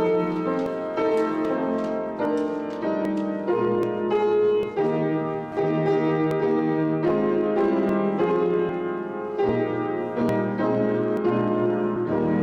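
Piano playing slow sustained chords, changing about once a second.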